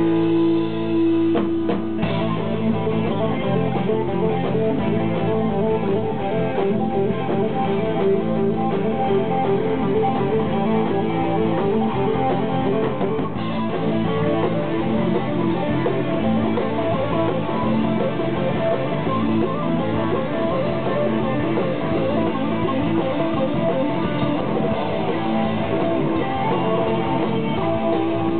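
Live rock band playing an instrumental passage, an electric guitar leading over bass guitar and drums.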